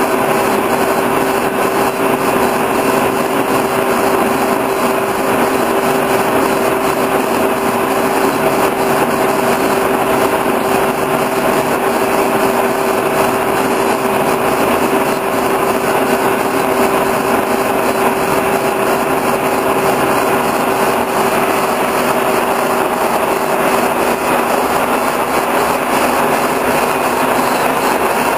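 Horizontal boring mill running steadily as a lathe, its spindle turning a steel shaft during a turning cut, with a constant hum holding one steady pitch.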